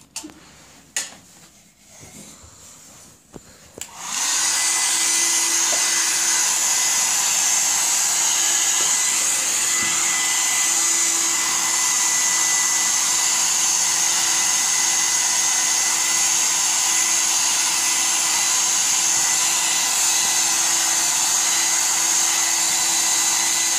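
A few faint clicks, then a hair dryer switches on about four seconds in and runs steadily: a loud, even rush of blown air with a steady hum underneath.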